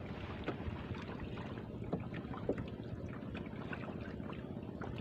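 Small fishing boat's engine running steadily at low trolling speed, with wind on the microphone and a few light knocks.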